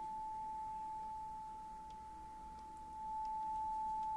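A steady, high-pitched pure test tone leaking through one channel of an Akai 7100 LTD cassette deck with its input volume knob turned to minimum. It sinks a little, then rises about three seconds in as the knob is turned. This is a sign that one half of the deck's dual volume potentiometer is faulty and does not turn that channel fully down.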